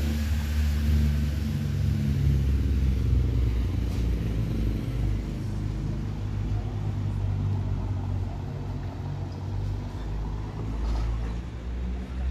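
Steady low rumble of road traffic and idling vehicle engines.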